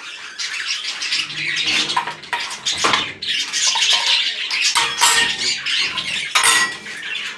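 Caged parakeets chattering and squawking in a wire aviary, with steel feeding bowls clinking as they are set into the metal feeder tray. Sharp knocks come a few times.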